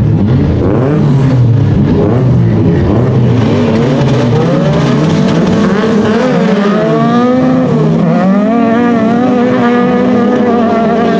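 Autocross race car engines at full throttle on a loose dirt track. First one engine revs up and down. About halfway through, several engines rev together and pull away in a pack, held at high revs.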